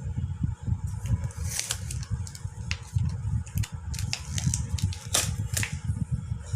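Irregular clicks and rustles over a low rumble: objects being handled close to the microphone.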